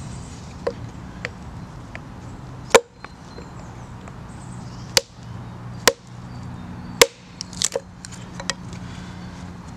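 Axe and a small stick struck down together onto a log to split kindling: four sharp knocks, a second or two apart, with lighter taps between them.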